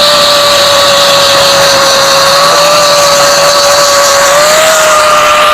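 Handheld electric grinder running at a steady high whine while polishing a gutted motorcycle exhaust muffler, its pitch wavering only slightly.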